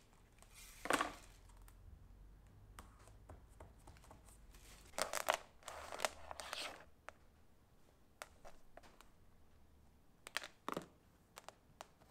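Faint hand-work sounds: a short snip of scissors trimming LED strip about a second in, then a few brief rustles and scrapes as thin white cable is handled against the board.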